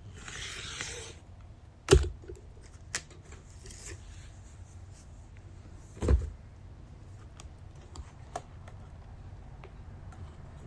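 Handling sounds on a work table: a brief rustle at the start, then two dull thumps about four seconds apart, with scattered light clicks and taps between them.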